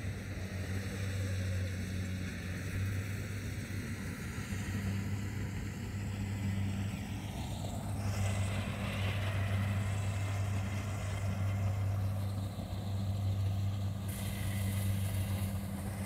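Kubota rice combine harvester running steadily as it cuts ripe rice: a steady low engine hum under a rushing mechanical noise, which grows louder about halfway through as the machine passes close.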